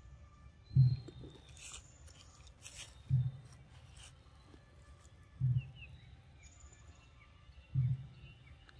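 Macaque eating a ripe mango, with faint wet bites and crackling clicks. Under it run low, dull thuds about every two and a half seconds, the loudest sound, and there are a few faint bird chirps near the middle.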